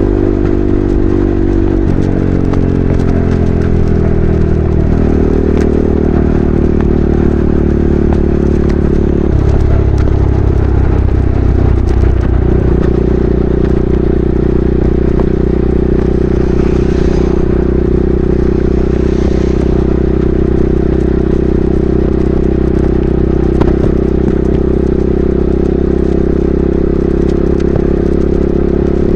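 KTM RC 390's single-cylinder engine running at highway speed through an SC Project replica slip-on exhaust. Its pitch falls between about two and five seconds in, shifts again around ten to twelve seconds, then holds steady.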